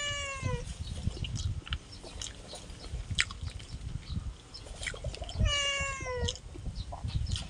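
A cat meowing twice: one falling meow ending about half a second in, and another drawn-out meow about five and a half seconds in. Between them come small clicks and rustles of fingers picking apart grilled fish and chewing.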